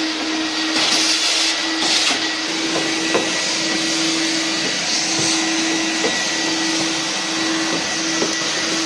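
Vacuum cleaner running steadily with a constant hum, its hose nozzle sucking lint and dust out of a tumble dryer's exhaust duct and base. The suction hiss surges louder twice, about one and two seconds in, and there are a few small clicks.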